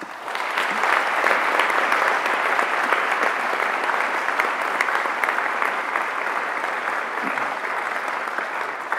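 Audience applauding, starting suddenly and holding steady, then easing off slightly near the end.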